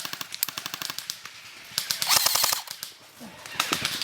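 Airsoft electric guns firing full-auto in three rapid bursts of evenly spaced cracks: one at the start, a denser one about two seconds in, and a short one near the end.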